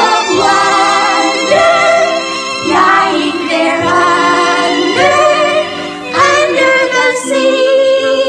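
Live singing with music, the voices holding long notes that step from pitch to pitch.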